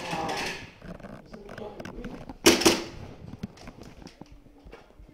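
Airsoft gun shots echoing in a small indoor space: two sharp cracks in quick succession about halfway through, among light scattered clicks and knocks.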